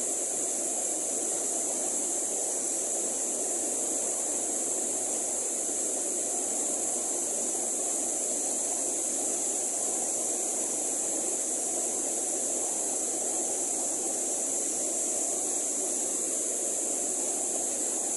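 Mountain stream rushing steadily over rocks through white-water rapids.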